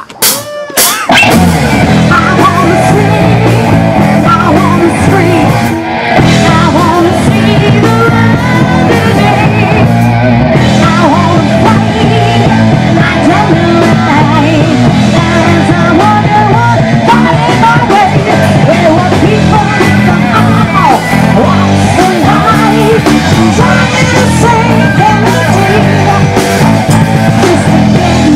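Live rock band playing, electric guitar and drums under a woman singing, starting about a second in.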